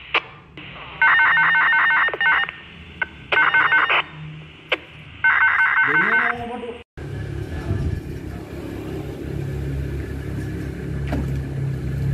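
Three bursts of a fast-pulsing electronic ringing tone, like a phone ringtone, each about a second long with short gaps between. After an abrupt cut, a steady low rumble takes over.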